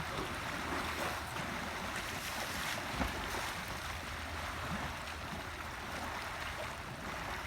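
Steady rushing, sloshing water as an elephant swims and plays in a pool in the rain, with one soft thump about three seconds in.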